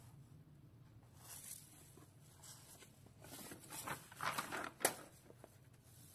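Paper rustling as a page of a lined notebook is turned over, mostly from about three to five seconds in, ending in a sharp flap of the page.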